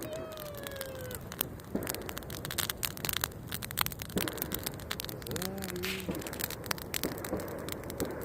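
Wood bonfire crackling, with frequent sharp pops and snaps. A falling whistle-like tone sounds in the first second, and a short voice-like sound comes about halfway through.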